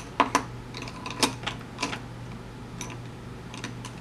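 Scattered light clicks and taps of makeup being handled, an eyeshadow palette and brushes picked up and opened, over a steady low hum.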